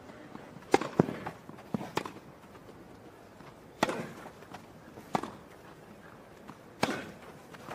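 Tennis rally: a ball struck back and forth with rackets, sharp pops of the hits coming every second and a half or so, with softer bounces of the ball on the grass court between them.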